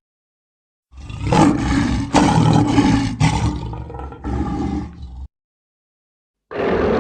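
Cartoon dragon-like villain's growling roar. It starts about a second in, lasts about four seconds with several sharp pushes, and cuts off suddenly. Another loud sound begins near the end.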